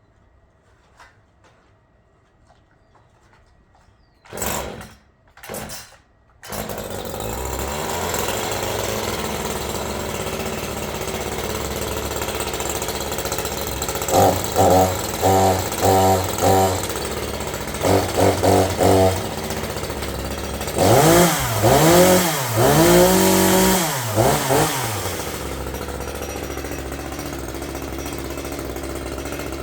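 Gas chainsaw pull-started, two short pulls and then it catches and idles. The throttle is blipped in short bursts, then revved up and down several times before it settles back to idle.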